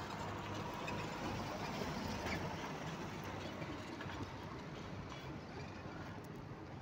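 Steady low rumble of a car driving slowly along the street, with no sharp events.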